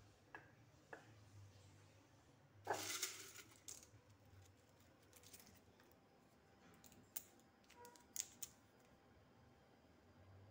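Faint kitchen handling sounds from glass spice jars and dry bay leaves being picked out: a few light clinks and clicks, with a longer rattle about three seconds in, and several more sharp clicks near the end.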